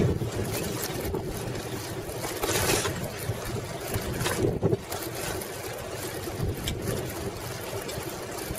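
Wind rushing over the microphone of a camera mounted on a moving bicycle, mixed with the bike's rolling noise on pavement, with louder gusts about two and a half and four and a half seconds in.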